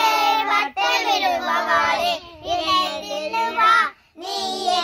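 A group of children singing a song together, in sung phrases with short breaths between them: about a second in, a little past two seconds, and near the end.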